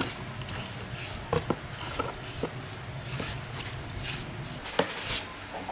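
Irregular light knocks, clinks and scrapes from hand work on metal engine parts, with the sharpest knocks about a second and a half, two and a half and five seconds in.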